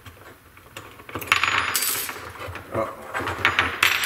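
Small metal parts of a security camera's swivel mount clinking and rattling against each other and the hard benchtop as they are handled: a jingling rattle a little after a second in, a few scattered clicks, and another short rattle near the end.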